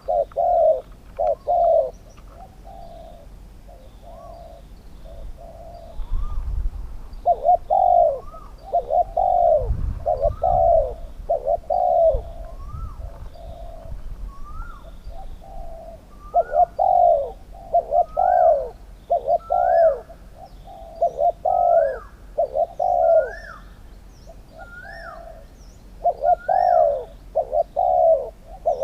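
Spotted doves cooing repeatedly in runs of phrases with short pauses between them, some phrases ending in a short rising note: a decoy dove calling to a wild one.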